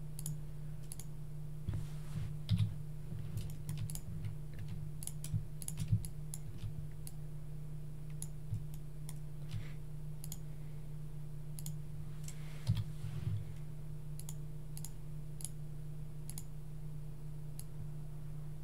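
Irregular clicks from a computer keyboard and mouse, bunched in short runs, over a steady low hum.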